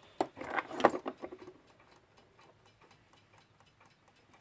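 Westclox Big Ben Style 1 alarm clock movement running with quick, even ticks, its balance freshly put in beat but not yet oiled. A few louder clicks and knocks come in the first second and a half.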